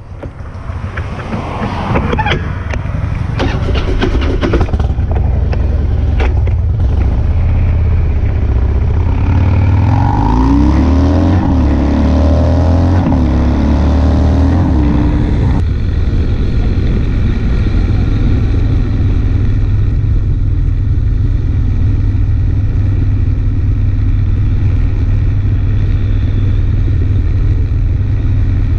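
Harley-Davidson V-twin motorcycle engine running while the bike is ridden, with wind rushing over the microphone. A few knocks and rustles come in the first seconds. Around the middle the engine pitch steps up and down several times, then settles into steady cruising.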